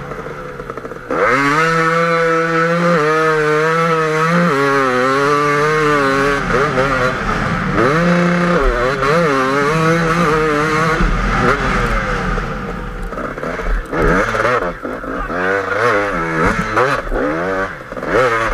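KTM 250 EXC two-stroke enduro motorcycle engine under hard throttle in sand, its pitch climbing and dropping again and again through gear changes. The throttle snaps open about a second in, and the second half has choppier on-off blips.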